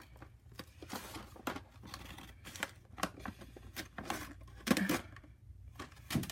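Toy packaging being opened by hand: cardboard and plastic rustling, tearing and crinkling in irregular short clicks and scrapes, loudest a little under five seconds in.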